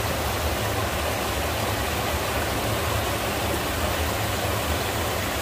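Rushing water of a rocky mountain stream: a steady hiss with a low rumble beneath it.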